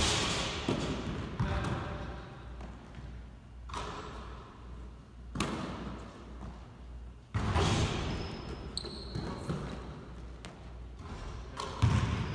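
A basketball hitting the hardwood gym floor a handful of times, each hit echoing around the large empty hall, over a low steady hum.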